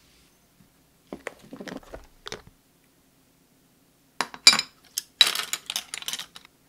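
Tableware being handled: a few soft knocks about a second in, then a louder run of sharp clinks and taps as chopsticks, spoon and small ceramic dishes are laid down against each other and a tray.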